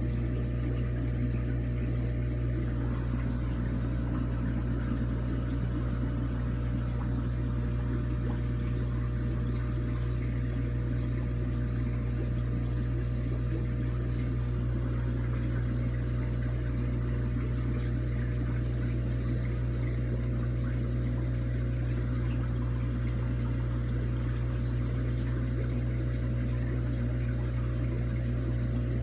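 Steady hum of running aquarium pumps and filtration, with water moving beneath it and no change throughout.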